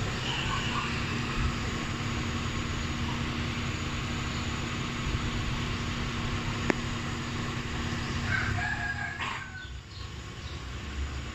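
A rooster crows once, a short call about eight to nine seconds in, over a steady low hum and rumble. A single sharp click comes a couple of seconds before it.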